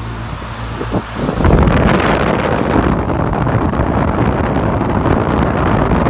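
Pentair UltraTemp HC140 pool heat pump running with a steady low hum. From about a second in, the fan's discharge air blows across the microphone as a loud, rough, buffeting rush.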